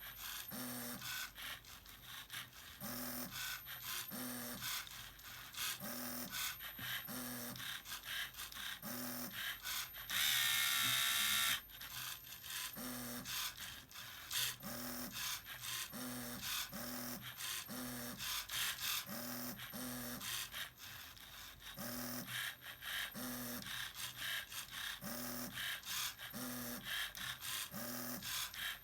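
Small electric motors of a Lego Mindstorms printer machine whirring in short, repeated bursts, with clicking of the plastic gears as the machine works. About ten seconds in, a louder buzzing whine lasts about a second and a half.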